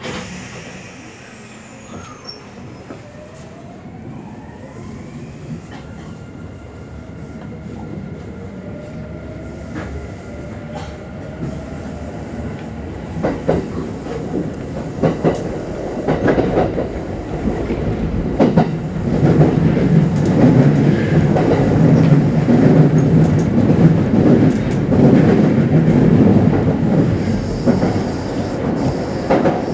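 Kintetsu Series 21 electric train accelerating, heard from inside the car: the traction motors' inverter whine rises in pitch over the first several seconds, then the running rumble grows louder, with wheels clacking over rail joints.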